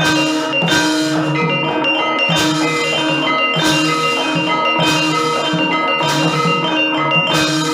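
Gamelan music: layered ringing bronze metallophones and gongs over a drum, with sharp accents about once a second, accompanying a shadow-puppet scene.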